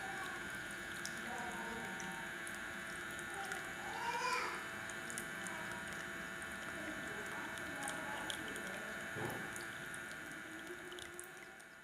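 Water trickling and splashing steadily in a small homemade tabletop fountain, fading out near the end.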